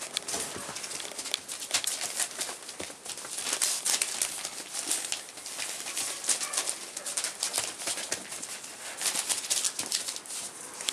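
Newspaper rustling and crinkling under the paws of rough collie puppies scampering about: a quick, irregular crackle.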